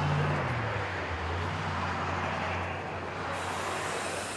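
An engine running steadily, a low hum that dips slightly in pitch about half a second in, over open-air background noise.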